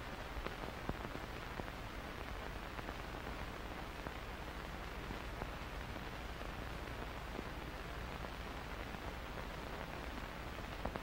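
Steady hiss with a few faint scattered clicks: the background noise of an old film soundtrack, with no other sound heard.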